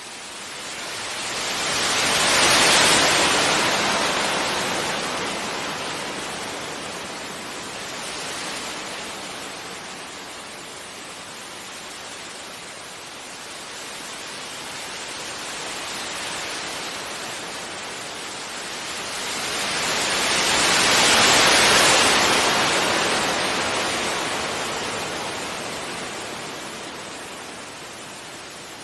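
Gentle sea waves breaking and washing up a beach: two larger waves crash about 3 and 21 seconds in, each fading slowly in a long hiss as it draws back, with smaller swells between.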